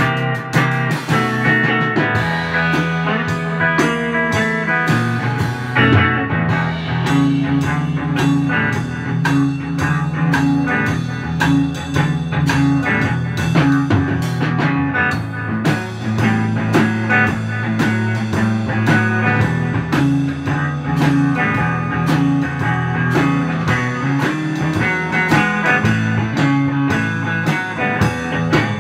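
Electric guitar jam: a Fender Stratocaster played through a Fender Princeton Reverb amp, with a drum kit keeping a steady beat.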